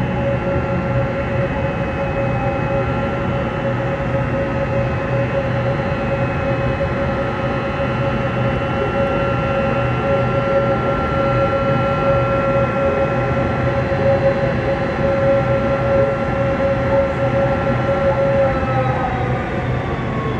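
Boeing 767-300 airliner taxiing in with only one of its two jet engines running, a steady whine over a constant rumble; about eighteen seconds in, the whine starts to drop in pitch as the engine winds down with the aircraft stopping at the gate.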